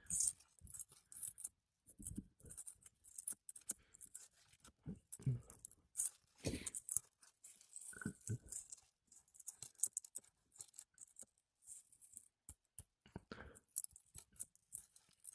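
Scattered scrapes and small clicks of a steel flat bar working under brittle asphalt three-tab shingles to pull roofing nails, with a few louder knocks.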